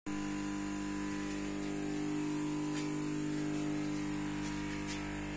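Steady machine hum at several fixed pitches, like an electric motor or blower running, with a few faint ticks around the middle and near the end.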